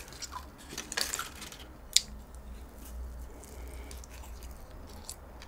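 Quiet eating and handling sounds as a cream-filled chocolate donut is pulled apart and bitten: a few soft clicks, then one sharper click about two seconds in, over a low steady hum.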